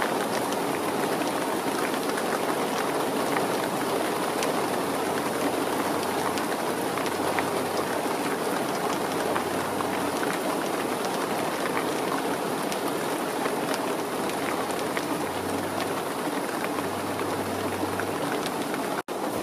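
Steady rain falling, with many small drop ticks. A faint low hum comes and goes, and the sound cuts out briefly near the end.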